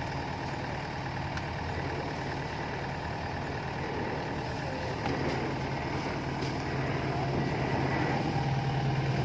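Yanmar rice combine harvester's diesel engine running steadily, growing a little louder near the end.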